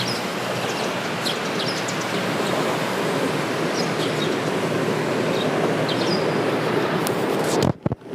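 Steady background roar of outdoor noise with several short bird chirps over it; near the end the roar cuts out abruptly and a few sharp knocks follow.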